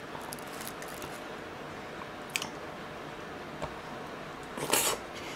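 A person taking a large spoonful of marinated pork rib with pickled vegetables and mushroom into the mouth, with wet mouth and bite sounds near the end. Before that there are a few faint clicks over a steady hiss.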